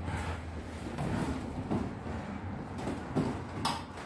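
Footsteps and bumps of people moving about on a boxing ring's canvas floor, with a sharp knock near the end.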